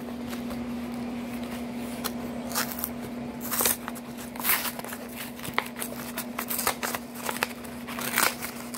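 Cardboard carton of a frozen meal being handled and torn open by hand: irregular scrapes, crinkles and rips starting about two and a half seconds in, over a steady low hum.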